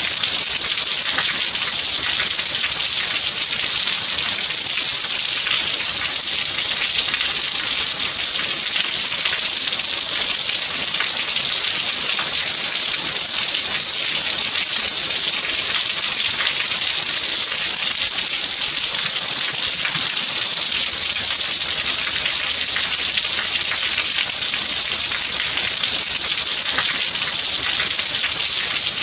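Rain falling steadily: an even hiss with a fine patter of individual drops through it.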